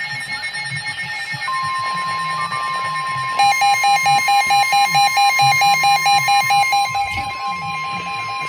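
NOAA weather radios sounding a tornado warning alert. The steady weather alert tone starts about a second and a half in. A little over three seconds in, a radio's own alarm joins it with rapid, evenly spaced beeping.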